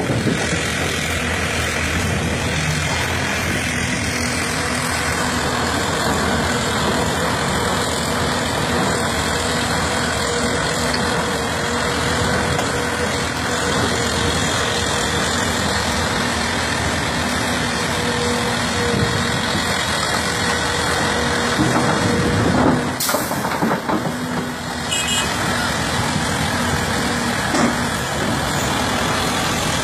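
Heavy diesel engine noise from a Hyundai 330 excavator working beside a dump truck: a steady running drone with a constant hum. Partway through there is one brief sharp knock.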